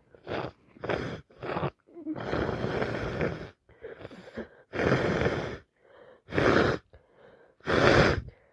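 A person with a heavy head cold making congested nose sounds, sniffing, snorting and blowing her nose. It comes as a string of short noisy bursts, with a longer one about two seconds in.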